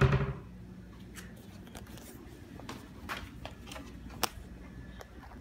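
A single loud knock at the start, then scattered light clicks and rustling from handling the phone and the snacks in a kitchen cupboard.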